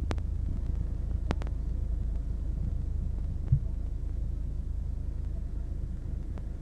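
Iveco Daily 35S12's 2.3 HPI four-cylinder turbodiesel idling at a standstill, a steady low rumble heard from inside the cab, with a few sharp clicks.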